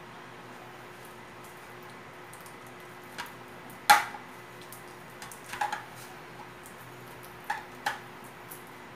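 Knife blade scraping and clicking against a metal baking pan while prying out ginger candy stuck to the bottom: a few separate scrapes and taps, the loudest about four seconds in.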